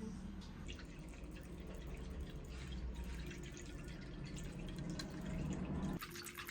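Water dripping: many small irregular drops over a steady low rumble, with the sound changing abruptly near the end.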